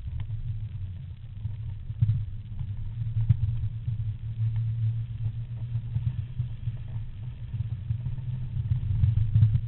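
Off-road 4x4's engine running with a steady low rumble that surges up and down a little, with faint scattered clicks and rattles over it.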